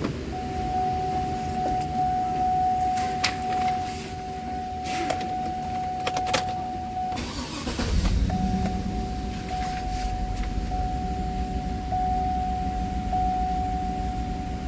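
Keys clicking in the ignition and a steady electronic warning tone, then about eight seconds in the 2009 GMC pickup's V8 cranks, starts and idles. The tone drops out during cranking and comes back. The engine is misfiring on cylinders 5 and 8, which the mechanic later traces to oil getting into the cylinders.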